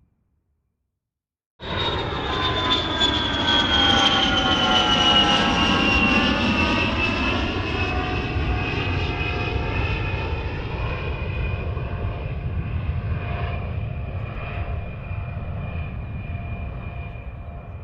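Fighter jet engine: a loud roar with a high whine that falls slowly in pitch, starting abruptly after a short silence and then fading gradually.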